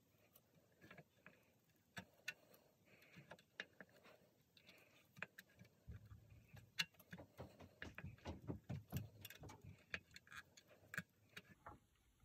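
Faint, irregular small ticks and crackles from a soldering iron working solder into the socket pins of a pinball MPU circuit board. They grow busier about six seconds in, joined by a low rumble.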